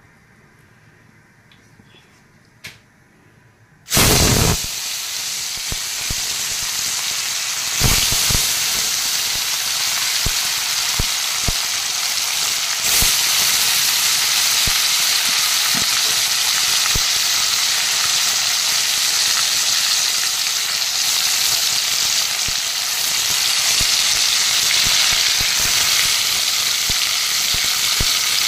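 Pieces of marinated fish go into hot oil in an iron wok about four seconds in, setting off a sudden loud sizzle, with a second surge near eight seconds as more goes in. After that there is a steady frying sizzle with scattered small pops.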